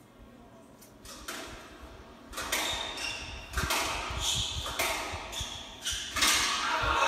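Spectators shouting in bursts during a squash rally, with a few thuds among them, swelling into loud, continuous cheering near the end.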